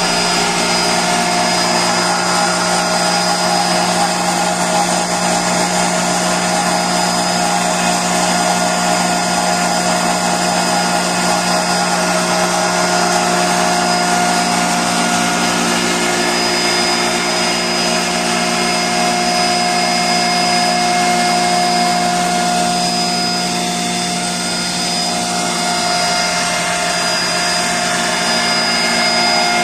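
BS-180 knife-type hammer mill running steadily while grinding dry moringa leaves through a 4 mm screen: a loud, even whirring hum with a steady high whine over it.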